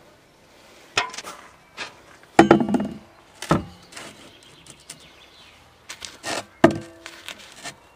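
Several separate knocks and clunks as a welded steel dive-ladder bracket is set down and positioned on a fibreglass boat. One of the later knocks leaves a short metallic ring.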